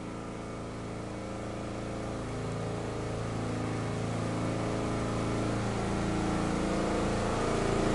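A steady engine hum with several pitches, growing slowly louder.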